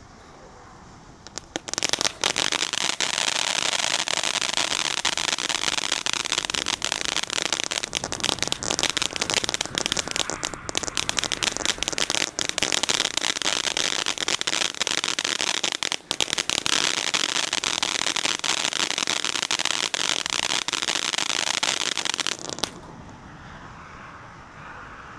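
"Dancing With Ghost" firework fountain spraying sparks: a hiss at first, then from about two seconds in a loud, dense crackling that runs for about twenty seconds. Near the end the crackle stops suddenly and only a quieter hiss is left.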